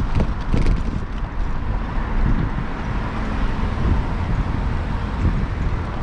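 Wind buffeting the microphone during a bicycle ride, a steady low rumble that swells in gusts, with city road traffic underneath and a few faint clicks in the first second.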